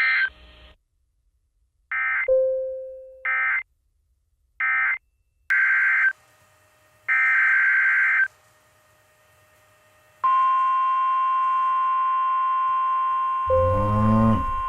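Emergency Alert System SAME data bursts, a series of short buzzy digital chirps: three brief ones, then two longer ones. About ten seconds in, a NOAA Weather Radio 1050 Hz warning alarm tone starts and holds steady, signalling an incoming warning. A short decaying chime sounds near the first bursts, and a brief swooping sound plays over the tone near the end.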